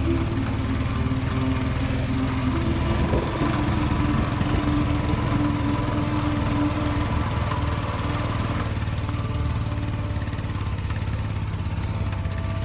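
Vehicle engine running steadily under load, heard from aboard the vehicle, its pitch shifting a little as it travels.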